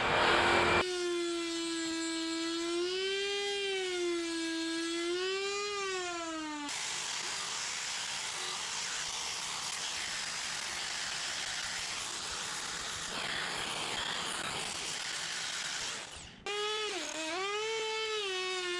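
Small high-speed electric carving tool whining as it works the wood, its pitch dipping and rising with the load, in two stretches. Between them, for about nine seconds, a steady rushing hiss.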